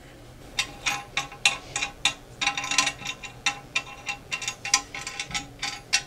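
Sharp, irregular clicking, a few clicks a second, starting about half a second in: wing nuts being turned by hand onto the toilet tank's mounting bolts under the tank.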